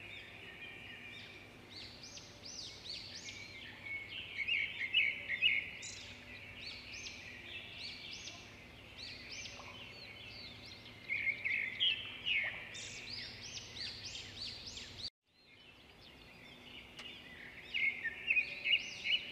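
Several birds chirping and calling in quick, overlapping phrases of short rising and falling notes, over a faint steady low hum. The sound cuts out for about a second roughly three-quarters of the way through, then the birds resume.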